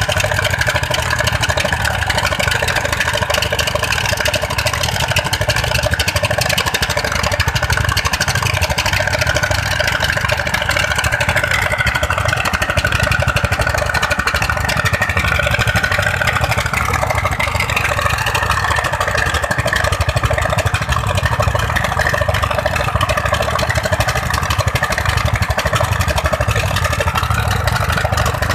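Several single-cylinder 'dompeng' diesel engines on a sand-mining raft running steadily, driving the suction pump that draws sand up from the riverbed.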